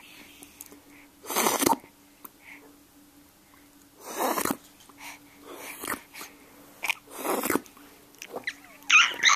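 A man making funny noises with his mouth and breath: four short, breathy bursts a second or two apart, then a brief higher, voice-like sound near the end.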